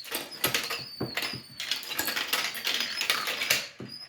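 Marbles rolling and clattering through a marble run, with many irregular clicks and knocks as they hit the track and drop off it.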